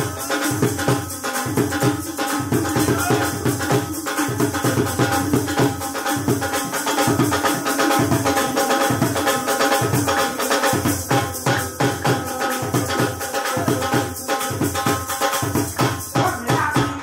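Instrumental music with a fast, steady drum beat under sustained melody notes.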